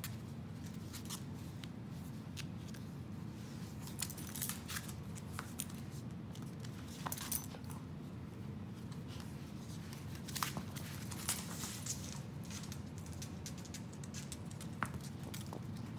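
Scattered clicks and scuffs of a corgi puppy's claws and a tennis ball on a hard laminate floor, over a steady low room hum.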